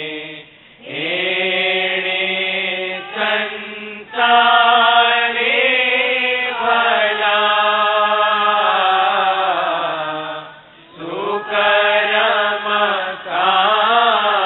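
A voice chanting a devotional melody in long, held, wavering notes, with two short breaks for breath, just after the start and about ten and a half seconds in.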